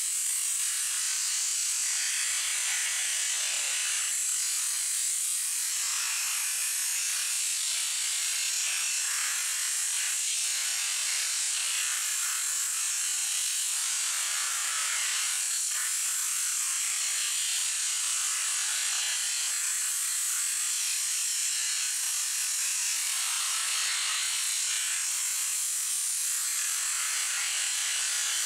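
High-pressure washer jet spraying at close range into raw mackerel and the concrete beneath, a steady hiss with little low end.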